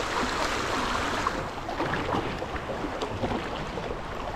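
Fast river current rushing around a kayak: a steady wash of moving water with small scattered splashes.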